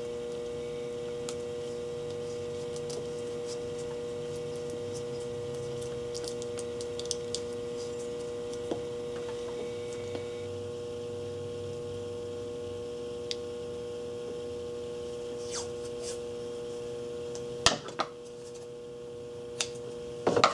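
Faint rustles and small ticks of electrical tape being handled and laid over a LiPo battery pack, over a steady electrical hum. A few sharper clicks come near the end.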